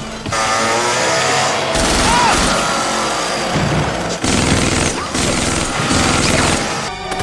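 Dense, continuous MAC-10 submachine-gun fire, as dubbed into a film soundtrack.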